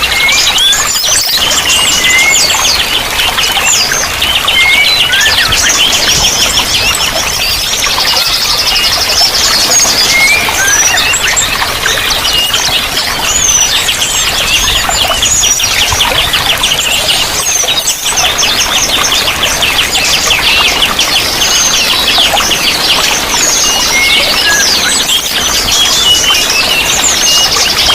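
Several songbirds chirping and singing at once, with long rapid trills and short whistled notes, over a steady rush of running water.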